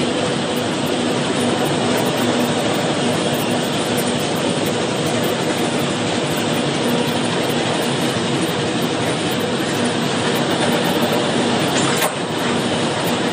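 Loaded freight train wagons rolling past at speed: a steady rush and rumble of wheels on rail, with a brief break in the sound near the end.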